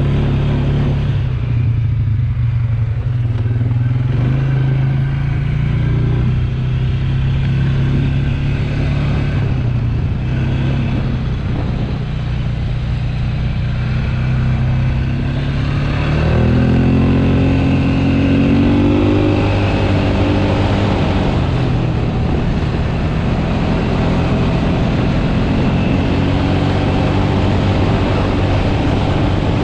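ATV engine running under way, a steady hum that rises in pitch and gets louder about halfway through as it speeds up, then holds at the higher speed.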